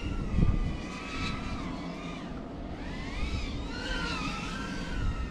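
FPV quadcopter's motors whining, the pitch rising and falling in slow waves as the throttle changes. Under it is a low rumble, with a thump about half a second in.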